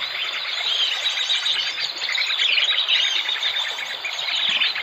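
Many small birds chirping and twittering at once, a dense, unbroken chorus of short overlapping high calls and trills.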